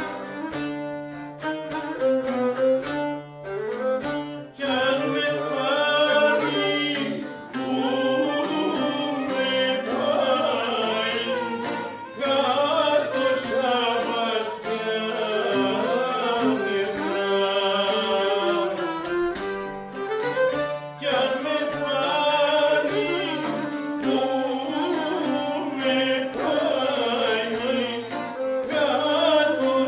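Live Greek song: a man singing, accompanied by a violin playing the melody and a plucked round-backed lute.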